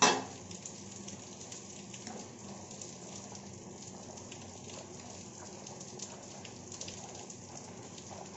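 Milk and grated bottle gourd boiling hard in a metal pan over a high flame, a steady fine crackling bubble like patter of rain, stirred now and then with a steel spoon. A single sharp knock right at the start is the loudest sound.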